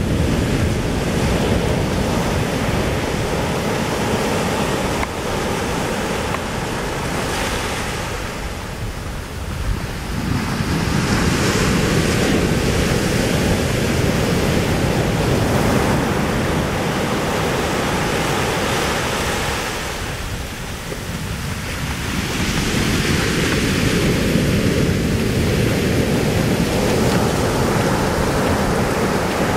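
Ocean surf breaking and washing up the beach, a continuous rush that swells and eases, softening briefly twice, with wind on the microphone.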